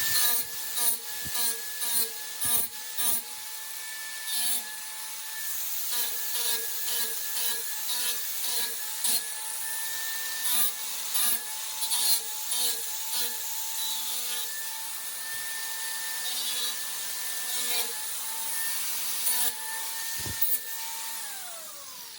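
Angle grinder fitted with a flap disc runs with a steady motor whine. It is pressed against a wooden axe handle in many short passes, sanding it down with a scratchy rasp at each contact. The motor winds down near the end.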